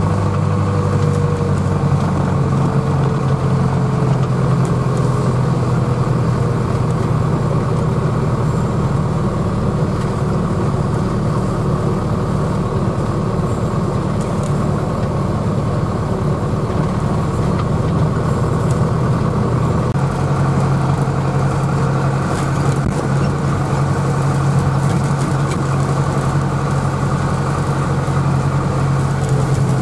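International Harvester tractor engine running steadily under way, heard from inside the cab.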